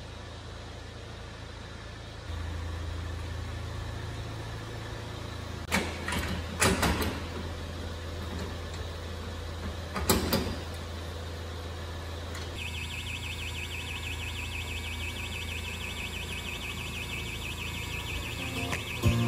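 A vehicle engine running with a steady low hum, with a few knocks partway through and a high, even ticking from about two-thirds of the way in.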